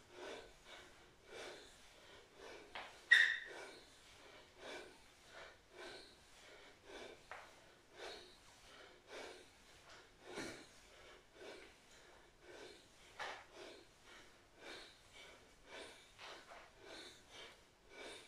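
A person breathing hard with exertion while swinging their arms, short breaths in a quick steady rhythm. A sharp click about three seconds in is the loudest sound, and a dull thump comes about ten seconds in.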